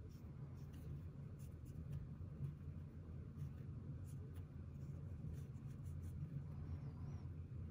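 Brush pen's ink tip stroking across IKEA MÅLA drawing paper: a series of faint, irregular scratches, over a steady low hum.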